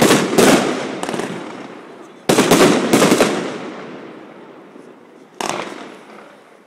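Aerial fireworks shells bursting: a loud bang at the start with two more in the first second, a quick run of about four bangs a little over two seconds in, and a lighter one near the end. Each bang trails off in a long echo that dies away.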